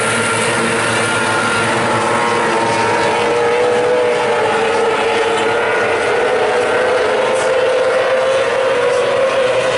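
Several Formula 500 dirt speedway cars racing round the oval together, their engines held at high revs in one steady, blended engine note that wavers slightly in pitch.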